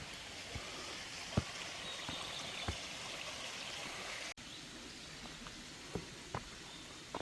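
Mountain valley stream running as a steady rush, which drops to a softer level about four seconds in. Scattered light knocks and clicks sound over it.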